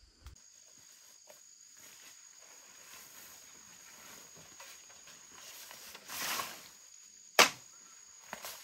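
Insects calling steadily in a high, unbroken drone. About six seconds in there is a brief rustle, followed by a sharp click and a smaller one near the end.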